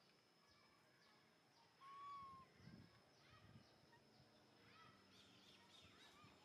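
Faint outdoor ambience of scattered bird chirps and calls, with one short clear call about two seconds in, over a steady faint high-pitched whine.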